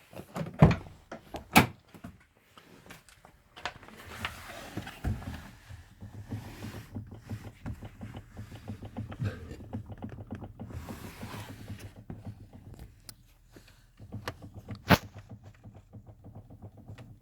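Irregular knocks and clunks from a Volvo XC90's steering with the engine off, a few much louder than the rest, which the owner suspects come from the steering rack. A low steady hum runs under the knocks through the middle and end.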